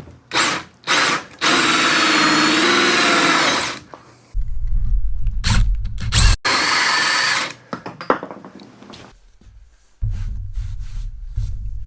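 Power drill with a 2-inch hole saw cutting into cedar, run in short starts: two quick blips, a run of about two seconds, a sharp knock, a second shorter run, then a low rumble near the end.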